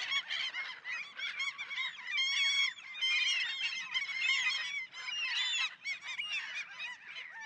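A flock of birds calling together: a dense chorus of many short, overlapping calls.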